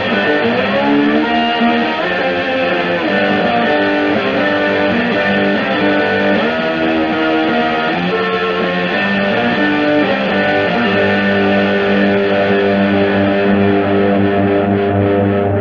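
Double-neck electric guitar played through a Vox amplifier: bent, sliding lead notes in the first few seconds, then a chord held and ringing from about eleven seconds in.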